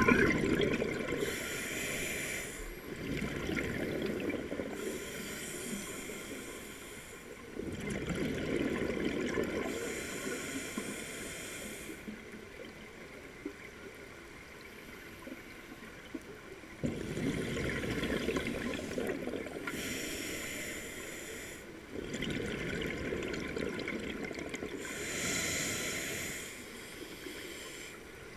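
Scuba diver breathing through a regulator underwater: slow cycles of exhaled bubbles alternating with the hiss of inhaling, one breath every few seconds, with a quieter pause partway through.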